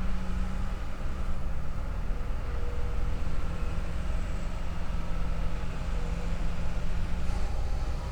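Engine of a tracked forestry machine on a steep-slope, winch-assisted logging job, running steadily with a low rumble and a constant hum that fades near the end.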